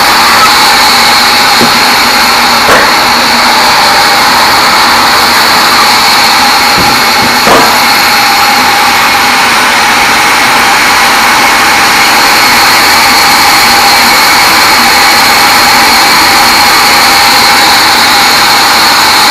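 Band sawmill running steadily while sawing a teak log, a loud even noise with a constant high whine. Two short knocks come through, about three seconds in and again about seven and a half seconds in.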